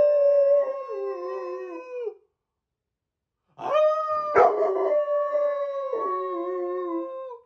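Rottweiler howling: two long, steady howls, the first dying away about two seconds in and the second starting after a short gap, with a lower second howling voice joining in partway through each.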